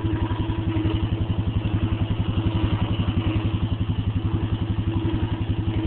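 ATV engine idling steadily, with an even, fast low pulsing and no revving.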